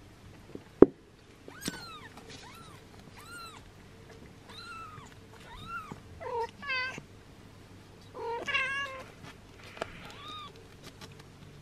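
Six-day-old kitten mewing repeatedly in short, high, thin cries while its mother licks it, the cries louder and quicker in the middle and about three-quarters through, a sign of the kitten protesting the grooming. A sharp knock about a second in.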